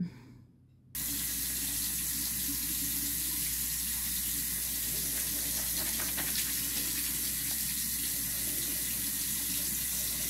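Water running steadily from a tap into a sink, starting abruptly about a second in.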